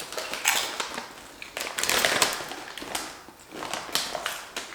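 Potato chips being crunched and chewed close to the microphone, in several separate bouts of crunching.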